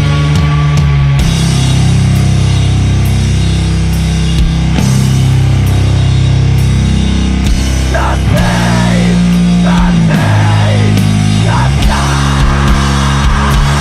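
Sludge metal: long held low guitar chords over drums with frequent cymbal crashes.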